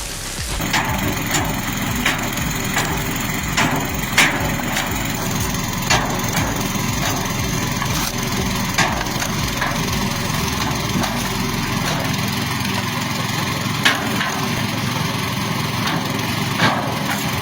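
An engine-driven multi-arm log splitter runs steadily while the wood cracks and splits with sharp snaps at irregular intervals.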